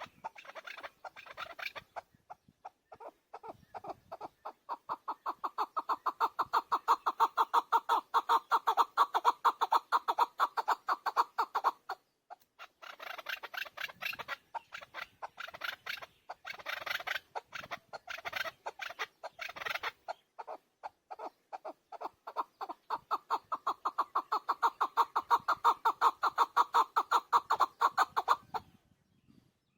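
Chukar partridge giving its rally call: long runs of rapid, repeated chuck notes that build in loudness. The calling breaks briefly about twelve seconds in, continues in a choppier series, then goes into a second long run that stops shortly before the end.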